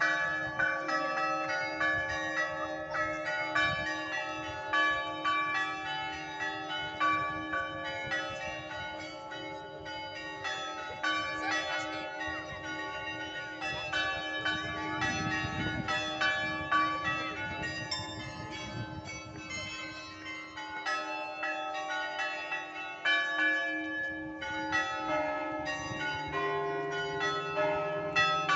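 Russian Orthodox cathedral bells rung in a continuous peal: quick strokes on the small bells over the sustained ring of the heavier bells.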